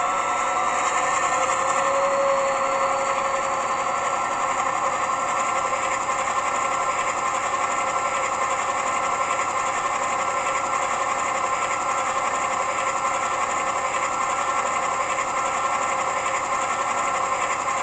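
Class 68 diesel locomotive sound file played through a model's DCC sound decoder speaker. The simulated Caterpillar V16 engine runs steadily at power notch 3 with electric train heating on, and a faint whine rises in pitch over the first few seconds as it settles into the notch.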